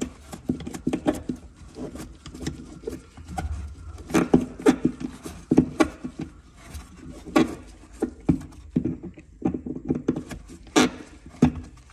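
Irregular knocks, taps and rubbing from handling a foam tool tray in a car's boot floor and the fixing and tools in it, with a louder knock near the end.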